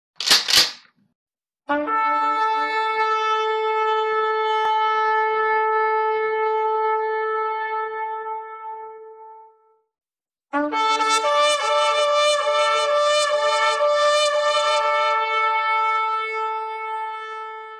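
Two long shofar blasts, each starting on a brief low note and leaping up to a held higher note that fades out, about seven to eight seconds apiece. A short whoosh comes just before the first blast.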